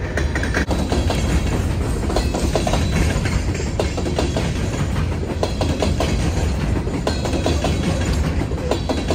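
Freight train's hopper cars rolling past: a steady low rumble of wheels on rail with irregular clicks and clanks over the rail joints.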